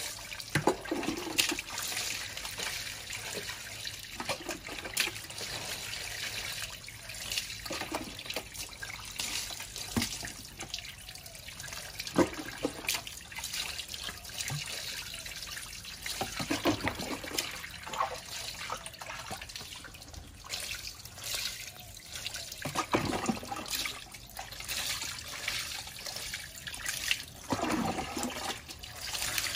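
Water poured from a plastic scoop over a baby monkey, splashing and trickling onto a wet concrete floor, in irregular pours and splashes that come and go.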